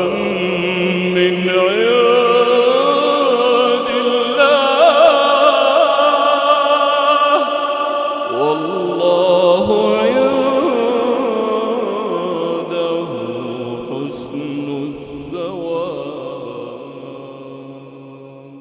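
A man's voice reciting the Quran in a slow, melodic chant, drawing out long held notes that bend up and down, with heavy reverberation. It fades out over the last few seconds.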